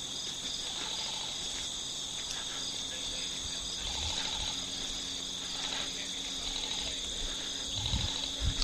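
Crickets chirping in a steady, high-pitched chorus. There are a couple of dull thumps near the end.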